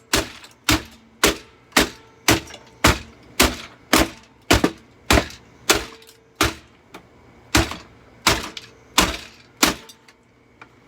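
Repeated sharp blows on the plastic housing of a Eureka The Boss bagged vacuum cleaner, about two a second, each with a brief ring, as it is broken open to reach the motor. The blows stop about a second before the end.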